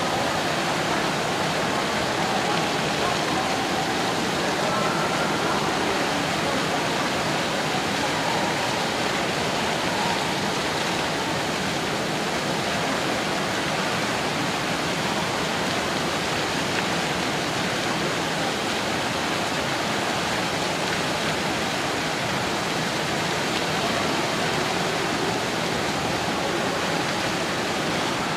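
Indoor fountain's water jets splashing down into the basin, a steady, even rush of falling water, with a faint murmur of voices behind it.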